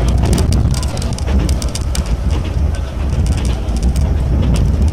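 Enoden electric train running, heard from inside the front of the car: a steady low rumble of wheels on rail with frequent light, irregular clicks and rattles over it.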